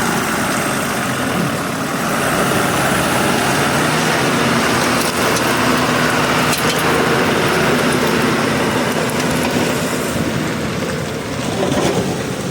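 Hyundai 215 excavator's diesel engine running steadily.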